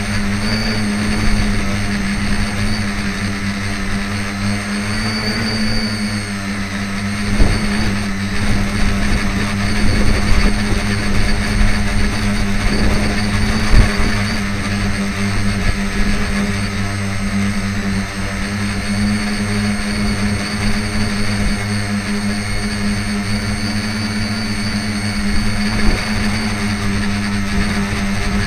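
Radio-controlled tricopter's electric motors and propellers droning at a fairly steady pitch, with strong wind buffeting the microphone and a few sharp thumps.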